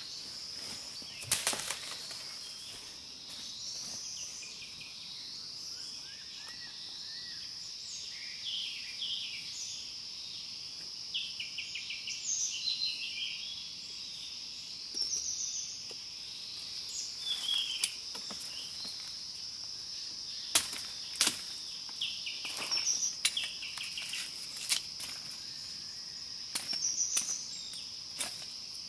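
Steady high insect drone with repeated bursts of quick bird chirps, and scattered sharp knocks, most in the second half, as a bamboo stake is pounded into the ground.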